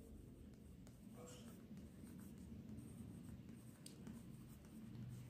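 Faint scratching of a pencil writing on paper, over a low steady room hum.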